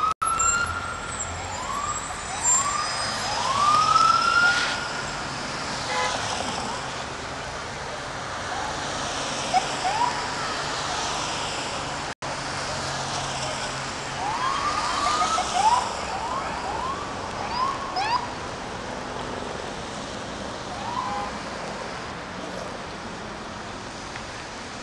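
NYPD police car sirens sounding short rising whoops, many overlapping as a convoy of patrol cars passes: a cluster near the start and another a little past halfway, fewer in between. Traffic runs underneath.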